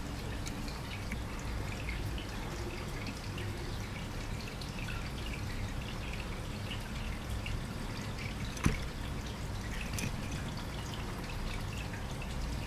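Faint scattered clicks and ticks over a steady low hum, with one sharp knock about eight and a half seconds in: a guinea pig shifting about on a wooden bridge toy.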